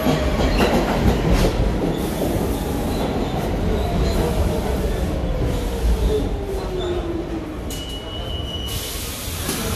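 An R46 subway train pulls into the station and brakes to a stop. Its motor whine falls steadily in pitch, over wheel squeal and clicks from the rails, and a hiss comes near the end as it stops.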